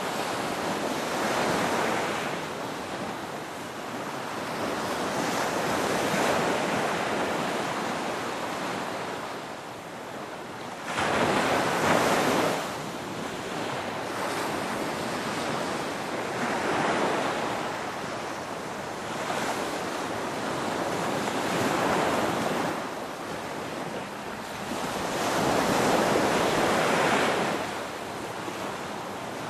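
Ocean waves breaking and washing on the shore, a steady rush that swells every few seconds, the strongest about eleven seconds in. Wind on the microphone runs underneath.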